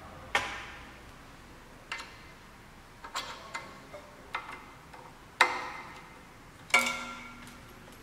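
Small steel calibration pins and a screwdriver clinking and tapping against the metal spindle and probe holder of a key cutting machine as the probes are fitted. About a dozen irregular clicks, a few of them ringing briefly; the two loudest come past the middle.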